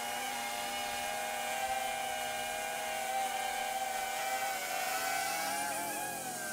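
DJI Avata 2 FPV drone's ducted propellers whining steadily in flight, the pitch wavering slightly about five seconds in as it manoeuvres.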